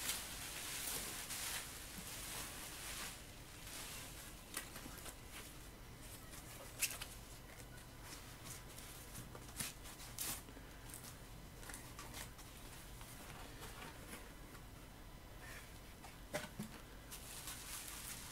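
Bubble wrap and plastic packing crinkling and rustling as foam-wrapped parts are handled and lifted out of a cardboard box. The rustling is denser for the first few seconds, then gives way to fainter rustles and scattered sharp clicks and taps.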